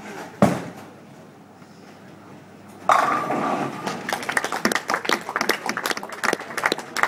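Ten-pin bowling ball thudding onto the wooden lane just after release, then, about three seconds in, striking the pins with a loud ringing crash, followed by several seconds of sharp clatter.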